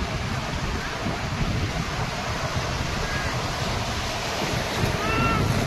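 Sea surf washing up on a sandy beach, with wind buffeting the microphone. A couple of faint short calls come through about three and five seconds in.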